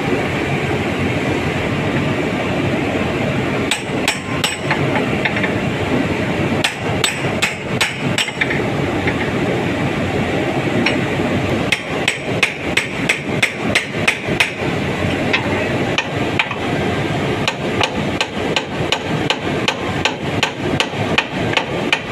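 Hammer blows on the jammed impeller of a cement roto packer, trying to knock out a stuck bolt that will not come free. A few scattered strikes come first, then a fast run of about three a second through the second half, over a steady machine drone.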